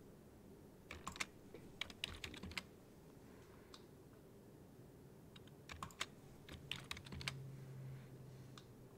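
Computer keyboard keys clicking faintly in two short flurries, about a second in and again around six seconds in.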